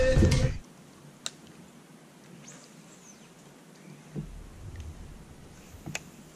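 Background music that stops abruptly about half a second in, then quiet outdoor ambience on a calm river, with faint high bird calls, two sharp clicks and a soft low rumble about four seconds in.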